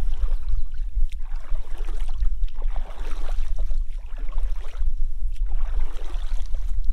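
Wind buffeting the microphone in a steady low rumble, with water lapping and splashing against the kayak's hull in uneven swells every second or so.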